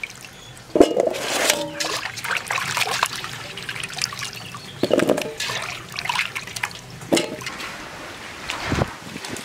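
Hands washing chunks of green papaya, then meat, in a metal basin of water: irregular splashing and sloshing, with water trickling and dripping back into the basin as pieces are lifted out. A few louder splashes stand out, about a second in, midway, and near the end.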